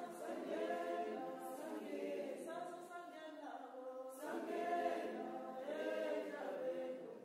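Background music: a choir singing without instruments, in long held notes, with a short break about halfway through.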